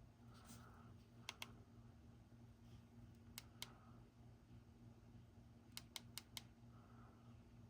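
Faint, sharp clicks of small plastic buttons being pressed on a camera remote and action cameras: two quick clicks, another two, then a run of four, over a low steady hum and a little handling rustle.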